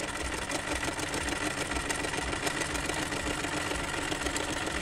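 Chaika 144A sewing machine running at a steady speed, sewing a pattern stitch at maximum zigzag width, its needle and feed mechanism clattering with a fast even rhythm.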